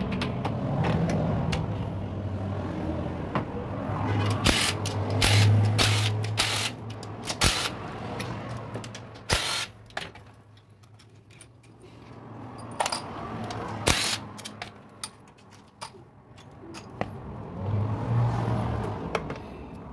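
Hand tools working the bolts of a motorcycle's stator cover (engine side cover): scattered metal clicks and knocks as the bolts are undone and the cover is worked loose. A low hum comes in a few seconds in and again near the end.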